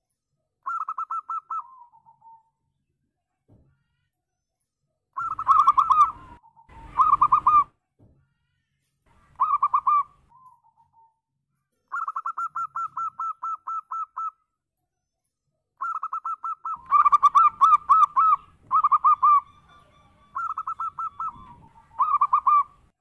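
Zebra dove (perkutut) cooing: about ten phrases, each a quick run of staccato coos, separated by short pauses, with a few phrases noticeably louder than the rest.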